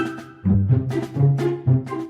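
Background music: a lively melody of short notes over a bass line.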